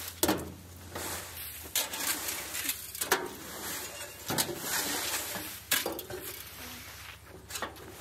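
Rakes scraping and dragging wood-chip mulch out of a garden cart bed and across a flower bed: irregular scrapes, rustles and light clinks of the tines, about a dozen strokes.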